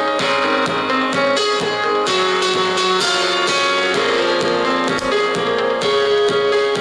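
Instrumental music with a steady drum beat, guitar and keyboard.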